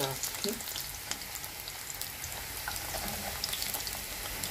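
Green plantain pieces frying in shallow oil in a cast-iron pot: a steady sizzle with scattered small pops and crackles. This is the first fry, before the pieces are pressed flat and fried again.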